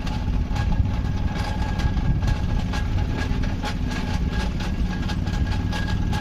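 Old Great Wall vehicle's engine idling with repeated clacking knocks from the engine or gearbox, as if something is striking inside; the mechanic traces the fault to a burnt-out transfer case.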